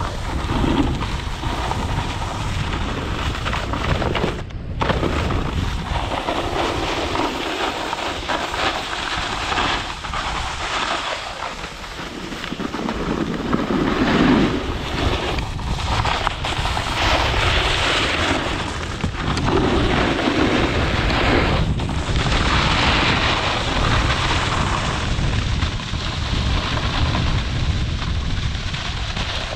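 A snowboard scraping and carving over groomed snow, mixed with steady wind rush on the microphone as the rider descends.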